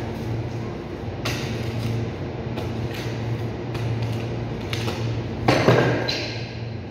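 Boning knife scraping and cutting through a beef forequarter, in short separate strokes, the loudest about five and a half seconds in, over a steady low machine hum.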